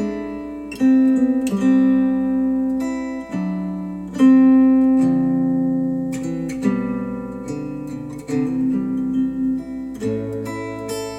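Guitar music, plucked and strummed chords ringing out with a new chord every second or two, played back through Wharfedale Denton 80th bookshelf speakers driven by a NAD C 338 integrated amplifier.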